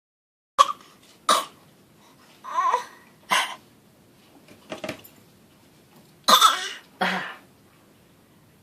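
A series of short, deliberate fake coughs, about seven in all, irregularly spaced, one of them fainter near the middle.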